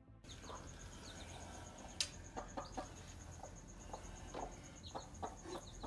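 Hen clucking in short low calls while her chicks peep in short high chirps, faint throughout. A faint, rapid, even high ticking runs underneath, and there is one sharp click about two seconds in.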